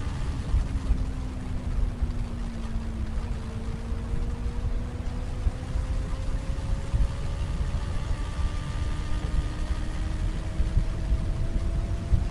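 Heavy wind buffeting on the microphone of a moving motorcycle, louder than the Benelli BN600i's inline-four exhaust note underneath it. The engine note sags slightly at first, then rises slowly and steadily as the bike gradually gains speed.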